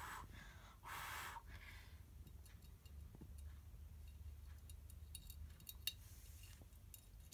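Mostly quiet, with faint clicks and ticks of metal alligator clips and thin wire being handled, a few sharper ones about five to six seconds in. There is a short breathy hiss about a second in.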